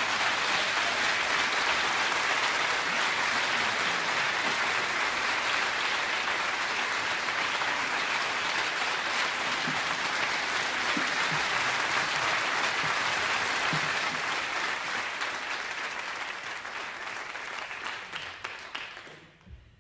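Audience applauding steadily at the end of a live song, the clapping thinning and fading out over the last few seconds.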